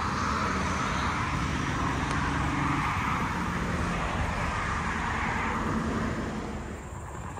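Road traffic: the steady tyre and engine noise of cars passing on a road, easing off about six seconds in.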